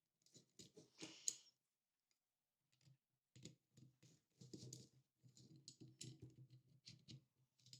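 Faint clicks and light rattling of small camera-mount parts being handled and fitted together by hand, with a short pause about two seconds in and then a denser run of clicks.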